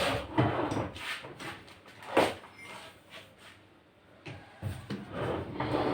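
Scattered knocks and clicks of hard objects being handled, the sharpest about two seconds in.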